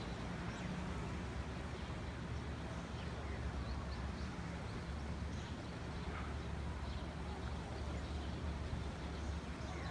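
Steady wash of sea surf breaking on a rocky shore, heard from a distance as an even rush with a low rumble.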